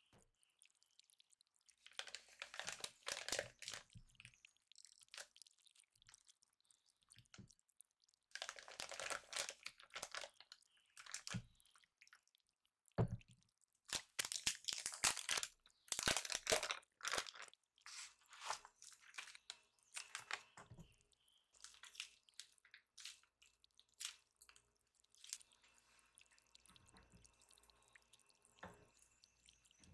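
Wooden spatula scraping a thick chocolate mixture out of a glass bowl and into a plastic piping bag, in several bursts of scraping and crinkling with a couple of soft thuds. After that come only faint handling sounds.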